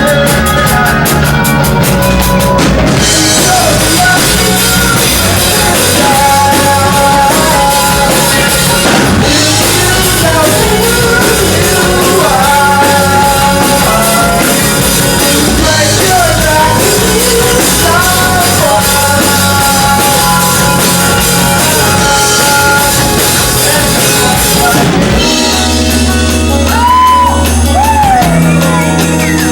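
Rock band playing live: drum kit, guitars and a singing voice. About 25 s in, the singing gives way to a heavier passage of drums and bass.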